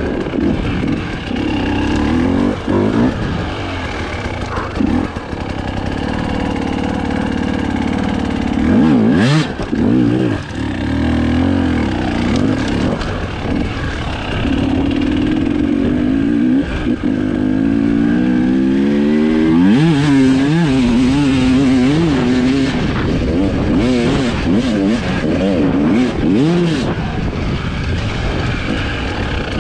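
Husqvarna TE 300i two-stroke single-cylinder enduro engine being ridden off-road, its revs rising and falling over and over as the throttle is worked. About two-thirds of the way in there is a long rising rev.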